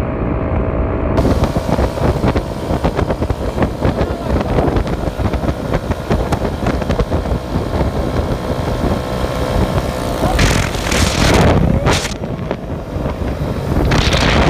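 Tractor engine running hard under load, a rough steady clatter, with wind buffeting the microphone. Louder gusts or bursts of noise come about ten seconds in and again near the end.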